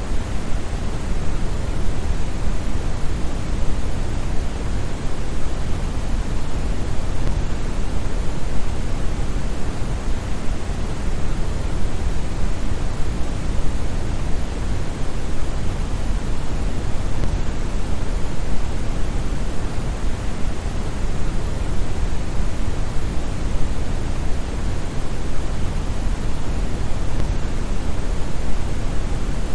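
Steady synthetic brown noise: a deep, even hiss weighted toward the bass, with no variation.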